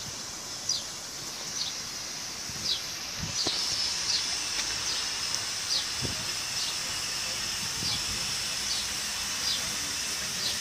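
Steam locomotive standing in steam, hissing steadily, the hiss growing stronger about three seconds in. A bird repeats a short, high, falling chirp about once a second.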